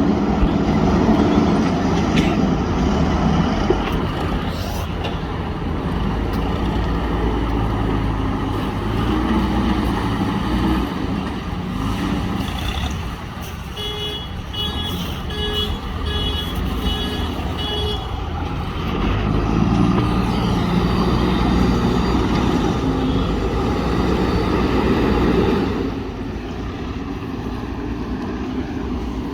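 JCB backhoe loader's diesel engine working under load, rising and falling as the machine pushes sand. Midway a reversing alarm beeps about twice a second for a few seconds.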